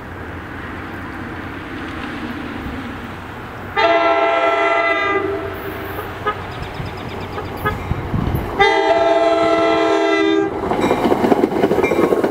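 NJ Transit commuter train approaching and sounding its multi-tone air horn in two long blasts, the second longer. The rumble of the train grows, and near the end it turns into loud wheel-on-rail clatter as the Comet V coaches pass close by.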